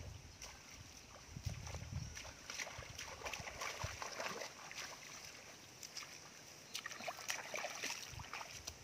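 Faint rustling and light crackling of bare feet stepping through long grass, with scattered soft clicks and a few low thuds.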